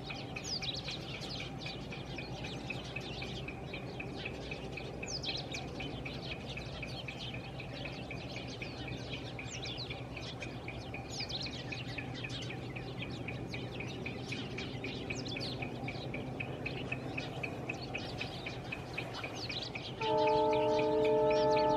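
Wild birds calling with short, quick falling whistles again and again, over a steady low hum and a high, fast-pulsing note. About twenty seconds in, a loud horn starts and holds several steady notes at once.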